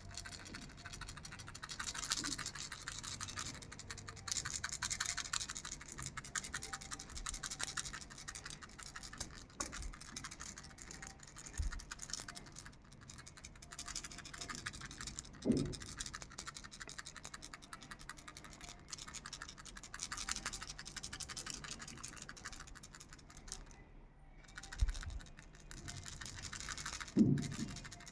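A sheep-shaped baby rattle toy being shaken, its beads rattling in a fast, continuous chatter, with a brief louder low knock about halfway through and another near the end.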